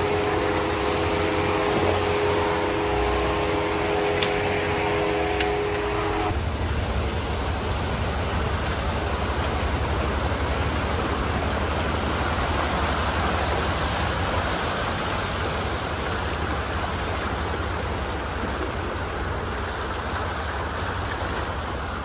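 4x4 crawling up a rocky, water-filled creek bed: a steady rushing of water and tyres over wet rock with a low rumble beneath. For the first six seconds a steady whine of several tones and a couple of sharp rock clicks sit on top, then the whine stops abruptly.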